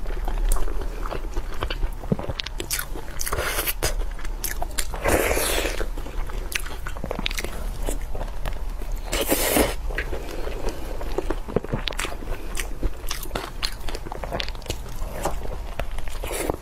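Close-miked eating: a person biting and chewing food, with many small wet clicks and smacks and a few longer squelching bursts.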